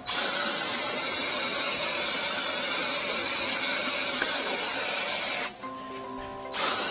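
Cordless drill spinning a flex-shaft drain cleaner inside a floor drain, its head grinding and scraping hardened epoxy out of the pipe with a loud, steady rasping noise. About five and a half seconds in, the grinding drops away for about a second, leaving only the drill's motor and gear whine, then starts again.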